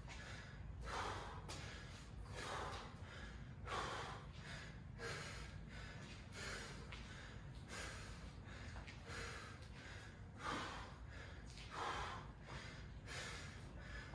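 A man breathing hard, with heavy, noisy breaths about every second and a half as he recovers from the exertion of repeated muscle-ups.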